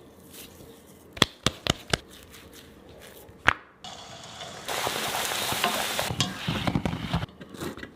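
A few sharp clicks, then hot oil sizzling steadily for a couple of seconds from about halfway through, as for bhatura dough deep-frying.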